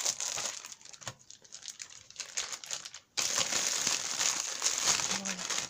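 Clear plastic bag crinkling as satin rose petals are pushed back into it. The crinkling is loud at first, softer in the middle, stops briefly at about three seconds, then resumes loudly.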